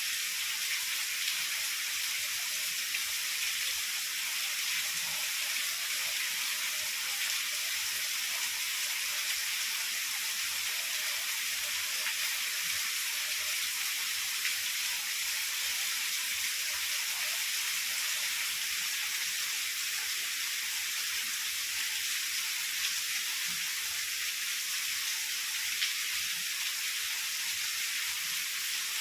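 Heavy rain falling steadily, an even high hiss with a few faint drop ticks.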